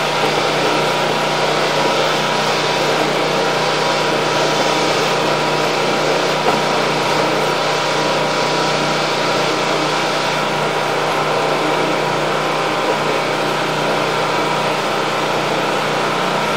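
Steady mechanical hum from a running motor or engine, holding one even pitch.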